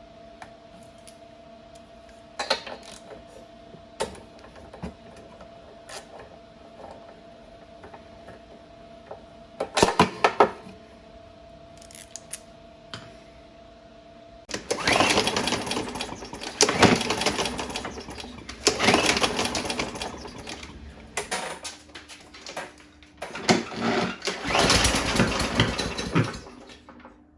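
Craftsman M100 push mower's 140 cc engine being pull-started on starting fluid sprayed into the cylinder, popping off lightly in two stretches in the second half. Before that, scattered clicks and knocks of tool work over a steady hum.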